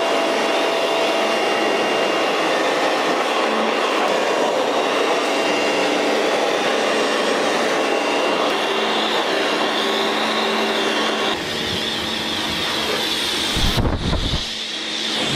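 Pressure washer running, its pump whining steadily as the lance sprays a high-pressure jet of water onto the car's paintwork. The sound shifts about eleven seconds in, and there are a few low thumps near the end.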